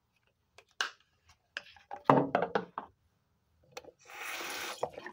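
A toothpaste tube and toothbrush being handled: scattered clicks and knocks, with a louder cluster of knocks about two seconds in. Near the end comes a hiss lasting about a second.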